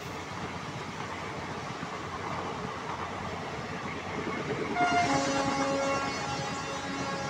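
Passenger train coaches rolling past on the track with a steady rolling noise. About five seconds in, a train horn starts sounding and holds as one steady chord of several tones.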